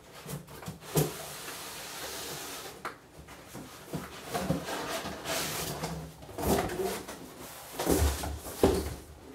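Cardboard packaging being handled: a box and its inner tray sliding and scraping against each other as they are pulled apart, with a few dull knocks of the box on a wooden workbench, the loudest two near the end.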